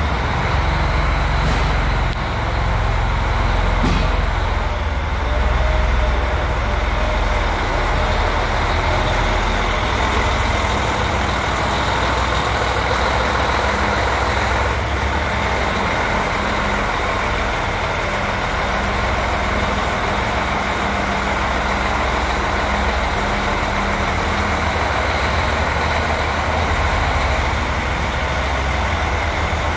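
Diesel engine of a Freightliner semi-truck running steadily, a continuous low rumble.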